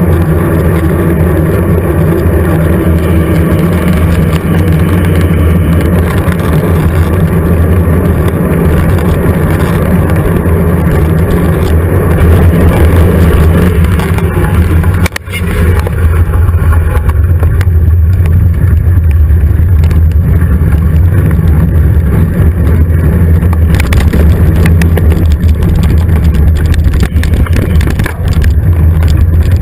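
Steady low rumble of wind and vibration on a GoPro Hero 2 mounted on a moving mountain bike, with tyre and frame rattle over dirt trail. There is a brief dropout about halfway.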